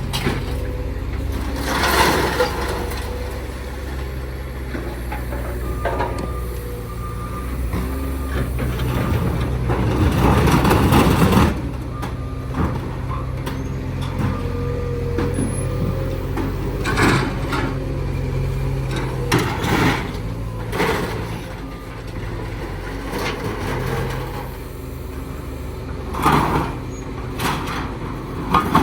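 Heavy vehicle engine running steadily, with a loud hiss about ten seconds in and scattered knocks and clanks.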